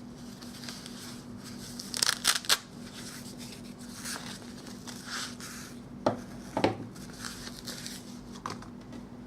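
Canvas carrying bag and metal bicycle multi-tool being handled: a few quick rasping scrapes about two seconds in, then two light knocks a little past the middle. A faint steady hum sits underneath.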